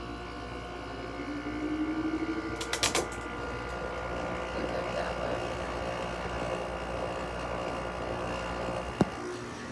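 Window air conditioner's Hitachi rotary compressor running just after start-up together with its fan: a steady mechanical hum with a tone rising in pitch over the first few seconds, a few clicks about three seconds in and a sharp click near the end. The compressor sounds angry.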